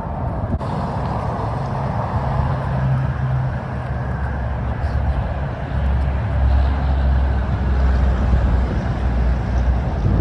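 A motor vehicle's engine running with a steady low rumble, heavier and deeper from about six seconds in.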